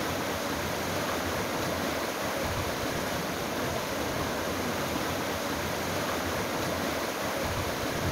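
Muhuri river floodwater rushing through a breach in its embankment: a steady, unbroken wash of turbulent water.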